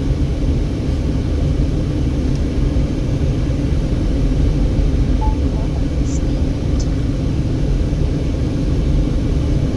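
Steady low rumble of a car driving on the road, engine and tyre noise as heard from inside the cabin, with a couple of faint ticks about six seconds in.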